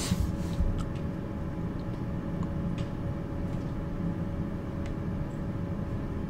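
Steady low background hum, with a brief burst of noise at the start and a few faint clicks after it.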